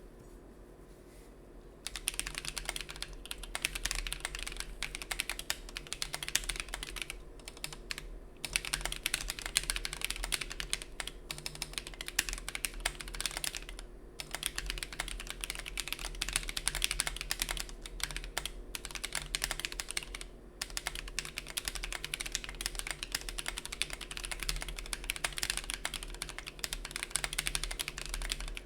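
Typing on a Mechwild Mercutio 40% mechanical keyboard with lubed Gateron Yellow linear switches, SA-profile keycaps and an undampened FR4 plate: a dense stream of key clacks starting about two seconds in, with brief pauses about a third of the way, halfway and two-thirds through.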